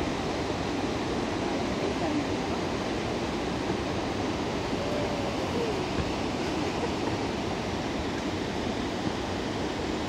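Steady rush of flowing water, a continuous even roar.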